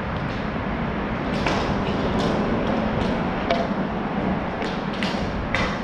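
Scattered sharp clacks of ball hockey sticks and ball on the plastic sport-court floor, about seven hits over a few seconds, over a steady background rumble.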